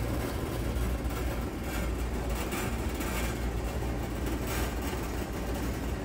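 Steady low hum of HVAC machinery, with a constant rush of air noise over it.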